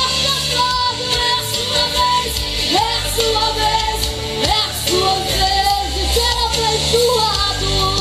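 Live gospel song: a young female singer sings into a microphone over a backing band, her notes sliding up and down in pitch.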